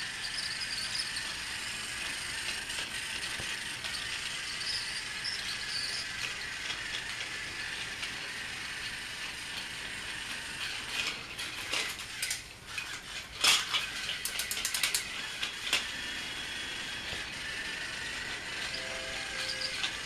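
Battery-operated Thomas the Tank Engine toy train running on plastic track, its small motor and gearbox whirring steadily. Around the middle comes a flurry of sharp clicks and rattles.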